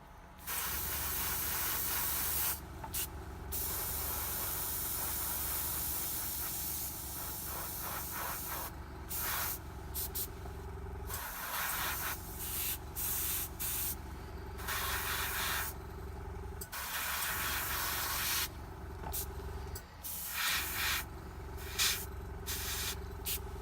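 Airbrush spraying a thin red filter coat, its hiss switching on and off many times as the trigger is worked, in stretches from under a second to several seconds long. A steady low hum runs underneath.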